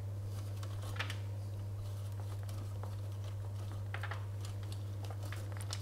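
A few faint, short scrapes of emmental cheese being rubbed over a stainless steel box grater, over a steady low hum.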